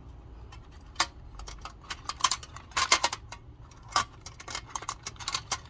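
Mini perfume bottles being handled and put away, with irregular sharp clicks and clinks as they knock against each other and are set down, louder taps about a second in and around three and four seconds in.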